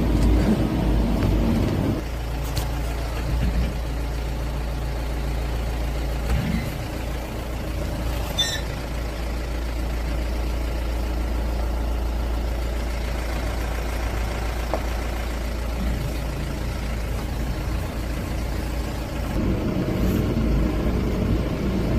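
Mahindra Bolero pickup's diesel engine running at low speed on a rough dirt track, a steady low hum, louder for the first two seconds and again near the end.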